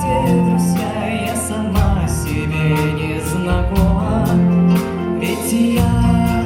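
Live folk-rock band playing, with a bass line moving under sustained melody notes and steady drum hits.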